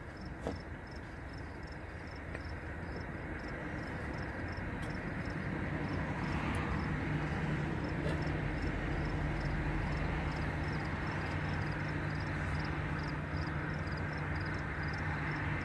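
Low, steady vehicle rumble that swells over the first several seconds and then holds, with a faint high chirp repeating about twice a second.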